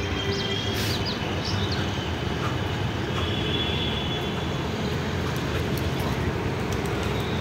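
Train passing on a railway line: a steady, even rumble of the train running along the track.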